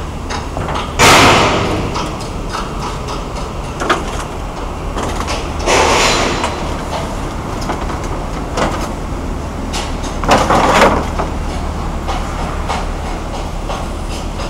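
Machinery running with a steady low hum, with three loud rushing bursts of about a second each, about one, six and ten seconds in, and scattered clicks and knocks.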